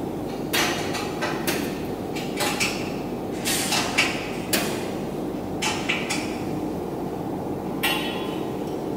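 Scattered knocks and clanks, about ten at uneven intervals in nine seconds, the loudest about four seconds in, over a steady low background rumble.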